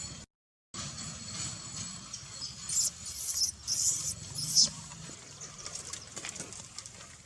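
Newborn macaque crying in distress: four short, high-pitched squeals about half a second apart, starting a little under three seconds in, the last the loudest.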